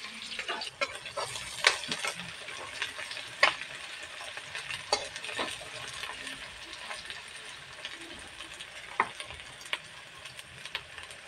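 Onions, green chillies and ginger-garlic paste sizzling in oil in a metal kadai, with a metal spoon stirring and clinking against the pan every second or two.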